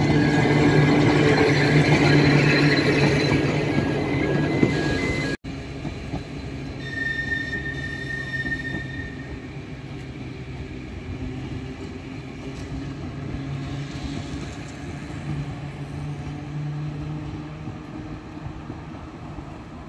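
Manx Electric Railway tram rolling past close over a level crossing, its wheels and running gear on the rails under a steady hum, with a beeping warning signal. About five seconds in the sound cuts to a quieter scene: a distant tram with a steady low hum, and a brief high tone.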